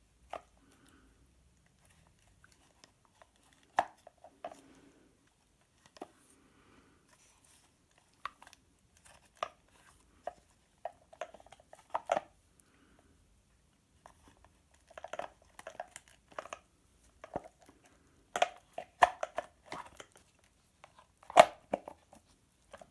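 Scattered clicks, taps and knocks of an aluminium mid-drive motor housing and its parts being handled and fitted together by hand. The sharpest knocks come in clusters about a third of the way in, and again in the last few seconds.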